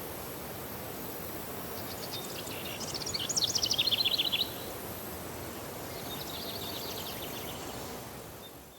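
A small songbird sings a rapid trill of fast repeated high notes about two seconds in, then a fainter trill around six seconds, over a steady outdoor hiss. The sound fades out near the end.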